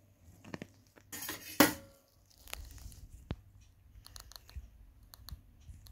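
Handling noises at a glass jug of anodizing solution: light clicks and clinks of the bolt, its wire and metal against the glass, with a louder rustling burst ending in a sharp knock about a second and a half in.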